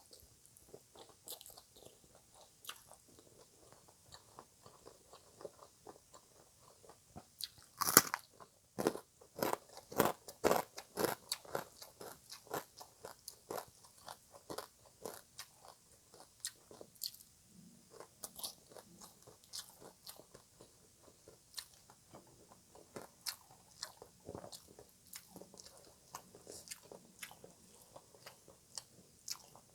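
Close-miked crunching and chewing of green papaya salad (som tam). A loud crisp bite about eight seconds in is followed by several seconds of rapid crunching, then softer, slower chewing.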